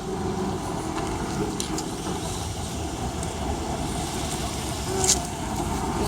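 Steady low rumble of outdoor background noise, with a short sharp click about five seconds in.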